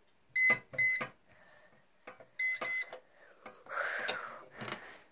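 Electronic safe's keypad beeping as the code is keyed in: four short, identical beeps in two quick pairs. A brief rustling noise follows near the end.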